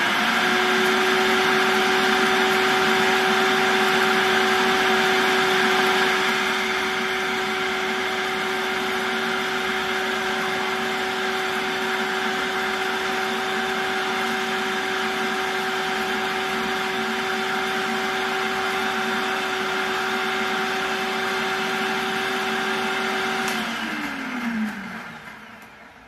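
Electric food processor motor running steadily, grinding dried green onion tops into powder, with a steady whine that drops a little in loudness after about six seconds. Near the end the motor is switched off and winds down, its pitch falling away.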